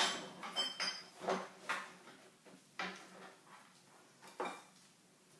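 Soap-making utensils and containers being handled and set down on a work surface: a run of irregular knocks and clinks, one with a short metallic ring about half a second in, thinning out after the first two seconds.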